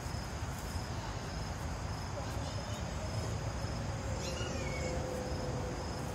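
Outdoor ambience: a faint high chirp repeating about twice a second, as from a cricket or other insect, over a steady low rumble.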